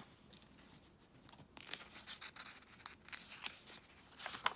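Paper rustling and crinkling as a hand handles and starts to turn a page of a picture book, a string of short scratchy rustles beginning about a second and a half in.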